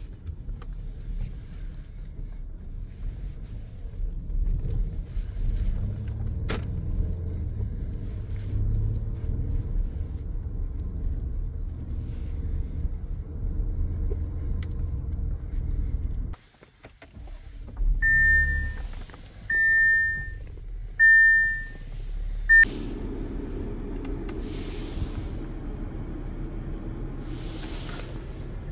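Low rumble of a 2017 Audi Q7 on the move, heard from inside. After about sixteen seconds it cuts out almost to silence. Then a high electronic chime beeps four times about a second and a half apart, with a steady hum after it.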